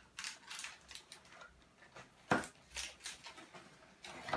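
Plastic wrapper of a Panini sticker packet crinkling as it is torn open by hand, with irregular crackles and a sharper crack a little over two seconds in.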